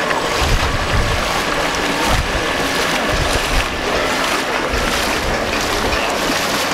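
Radio-controlled scale model of a Vosper motor torpedo boat running at speed across a pond: a steady rush of motor and wake, with a faint high whine, under wind rumbling on the microphone.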